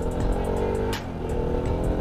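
Bajaj Pulsar RS200's single-cylinder engine running at a steady cruise while riding, with wind noise. There is a short dip in level about a second in.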